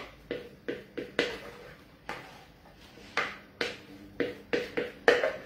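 A utensil scraping and tapping beaten egg whites out of a plastic mixing bowl: a series of quick, irregular scrapes against the bowl, about two to three a second.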